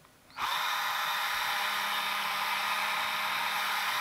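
A small electric motor running steadily, starting about half a second in and holding an even level, with a faint steady hum under a broad noise.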